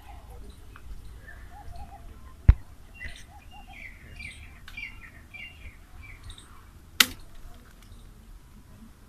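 Small birds chirping in a quick run of short, high calls. Two sharp knocks sound over them, a loud one about a third of the way in and another near the end.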